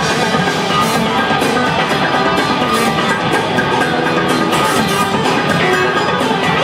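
Loud live rock music from a three-piece band with no vocals: electric bass, electric guitar and drum kit, heard from within the concert crowd.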